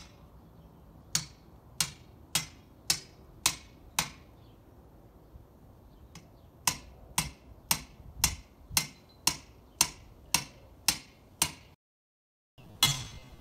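Repeated sharp metal strikes of a hand tool driven into the ground, about two a second, in two runs with a short pause between; the sound cuts off suddenly near the end.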